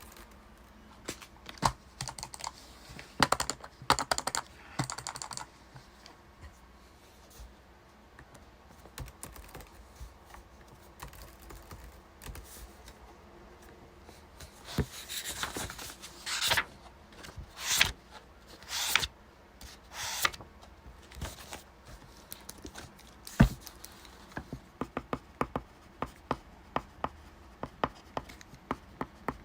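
Typing on a computer keyboard in a small room, keys clicking in irregular runs. In the middle come a few longer swishing strokes, and near the end a quick, even run of key taps.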